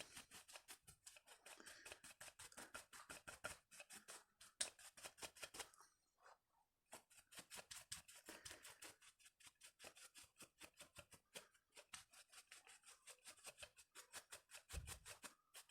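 Faint, quick strokes of a small brush scrubbing dust off a chainsaw carburetor, several strokes a second, with a short pause about six seconds in.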